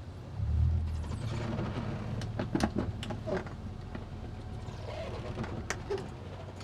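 Towboat engine running at low throttle in a steady low hum, swelling briefly about half a second in, with scattered sharp clicks and knocks.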